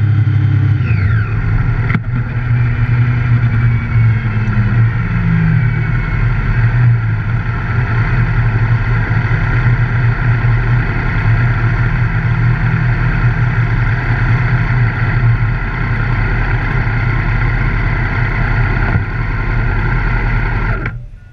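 Engine of the camera vehicle running steadily at low revs with a deep hum as it rolls slowly and pulls up, a brief falling whine about a second in; the sound cuts off sharply near the end as the engine stops.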